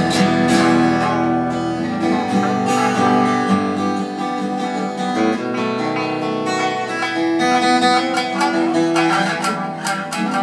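Live instrumental introduction: plucked acoustic guitar and Tsugaru shamisen notes over held piano tones.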